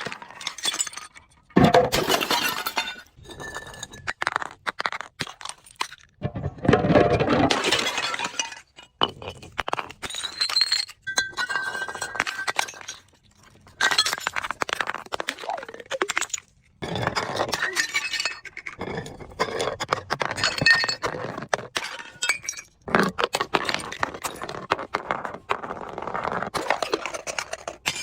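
Glass bottles breaking under crushing: repeated cracking and shattering with clinking shards, in several loud bursts.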